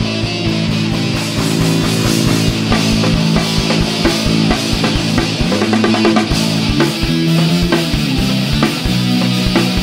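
Heavy metal music: a fast, steady kick-drum beat under sustained distorted chords and drums.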